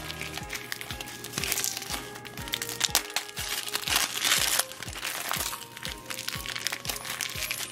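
Glossy gift-wrapping paper crinkling and tearing as it is pulled off by hand, in bursts that are loudest about a second and a half in and again around four seconds, over background music with a steady beat.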